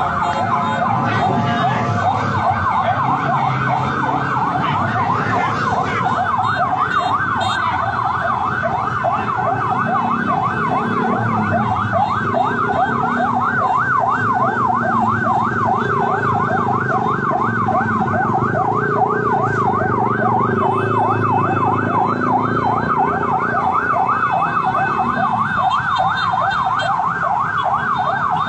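Electronic emergency siren in a fast yelp, its pitch sweeping up and down about three times a second without a break, over a low rumble of street noise.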